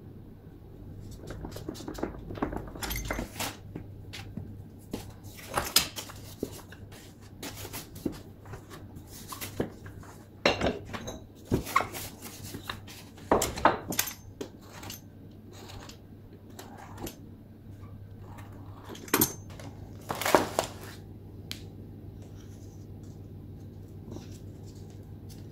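Scattered knocks and clinks of pastry work on a wooden board: a wooden rolling pin rolling and set down, and a metal tart tin handled as the dough is rolled and trimmed, over a low steady hum. The knocks die away near the end.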